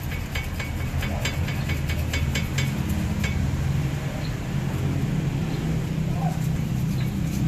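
Light metallic clicks and clinks, several a second for the first three seconds or so, from hands working on a car's front disc brake assembly during a brake pad change, over a steady low hum.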